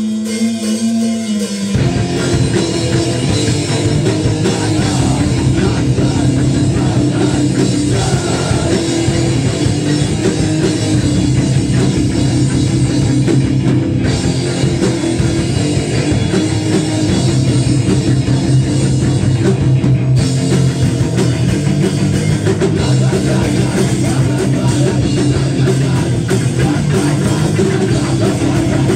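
Hardcore punk band playing live: a single held note rings for about two seconds, then the full band comes in with distorted electric guitars, bass and drums and plays on at full volume.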